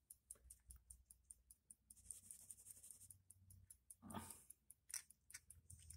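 Faint, rapid, even ticking of a wound mechanical clock movement running, about five ticks a second, with a soft rustle of handling about four seconds in.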